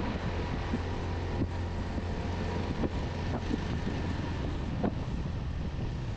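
Suzuki GS150 motorcycle's single-cylinder four-stroke engine running steadily while riding, with wind buffeting the microphone and a few light knocks.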